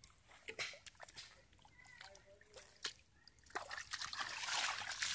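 Hands working through shallow muddy water: scattered small splashes and drips, then a steady run of louder splashing from about three and a half seconds in.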